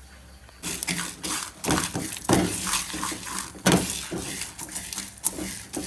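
Whole garam masala spices being dry-roasted in an aluminium pan and stirred with a wooden spoon: irregular scraping of the spoon and rattling of the seeds against the metal, starting about half a second in.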